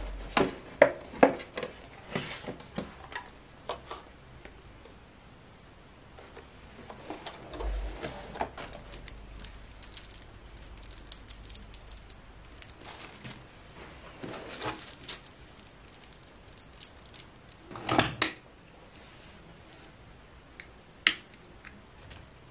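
Unpacking and handling items on a desk: paper packaging rustling, with scattered light clicks and taps of small hard objects set down and picked up. The loudest is a short cluster of knocks about eighteen seconds in.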